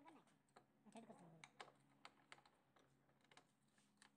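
Faint, irregular clicking of a socket ratchet being worked on a bolt while a new suspension lower arm is fitted, over a low steady hum.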